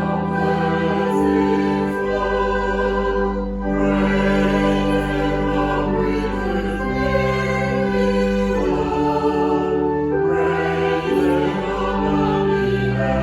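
Slow music of long held chords that change every second or two.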